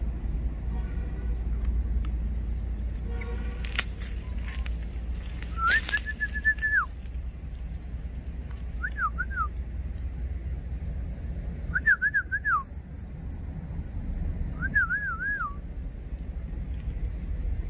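Four short whistled phrases, each a wavering tone of about a second, the first held flatter and longer, with a couple of sharp clicks before the first. Under them are a low rumble and a steady high-pitched tone.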